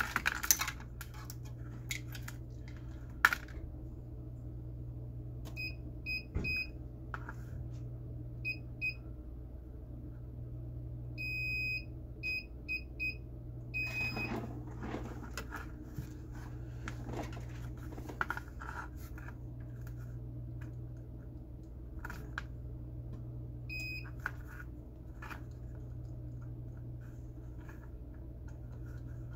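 Short high-pitched electronic beeps, mostly in quick groups of two to five and one later on, from a multimeter's continuity tester as a relay is checked. Handling clicks and a steady low electrical hum sit underneath.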